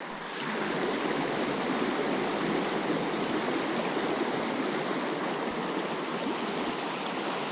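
Mountain stream water rushing over rocks, a steady even rush that fades in over the first half second.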